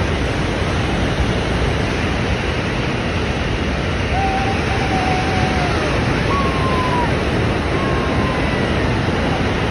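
Steady, loud rush of falling and churning water at Niagara Falls, even throughout, with a few faint thin notes sliding downward near the middle.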